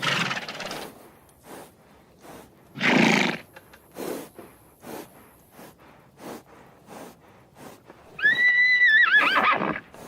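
Horse: two short noisy blasts of breath, then one whinny about eight seconds in that holds a high pitch and then wavers downward. Small knocks are scattered throughout.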